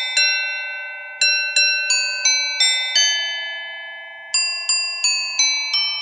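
Intro music: a bell-like melody of single struck notes, glockenspiel or chime in sound, each note ringing on as it fades. The notes come in runs of even steps a third of a second apart, with a pause of over a second partway through.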